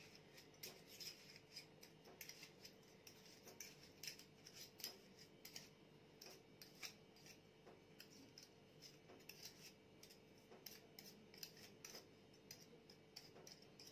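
Hand whisk scraping and clicking irregularly against a glass bowl while ghee and sugar are beaten together by hand to dissolve the sugar into the fat; faint, with many small ticks.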